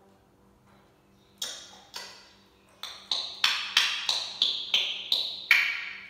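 A parrot making a run of about eleven sharp, ringing clicks, starting about a second and a half in and then coming roughly three a second, the ring of the last few falling in pitch.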